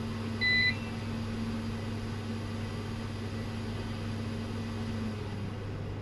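A single short, high electronic beep about half a second in, over a steady low electrical hum from the bench.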